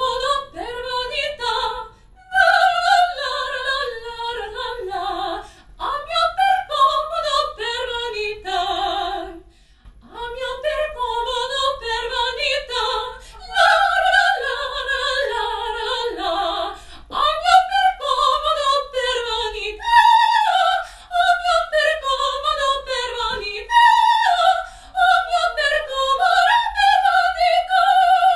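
A woman singing opera with no accompaniment, in wavering phrases that mostly fall in pitch, separated by short breaths.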